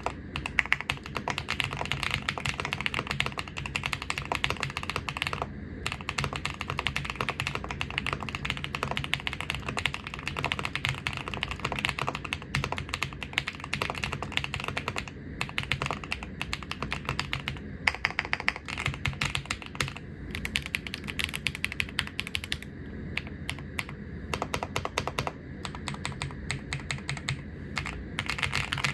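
Typing on an Epomaker QK81 gasket-mount mechanical keyboard: a fast, continuous run of key clacks with a few short pauses, growing sparser near the end.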